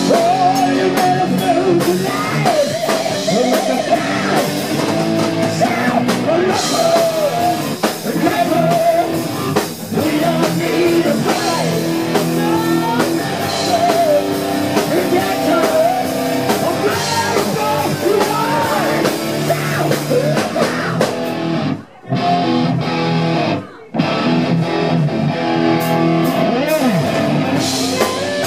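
Rock band playing live: electric guitars, drum kit and a male voice singing. Near the end the band cuts out briefly twice, two short breaks about two seconds apart.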